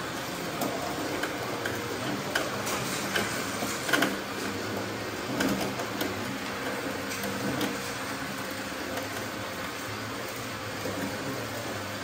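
Radio-controlled construction machines running: a steady motor hum with scattered clicks and knocks, the loudest about four seconds in.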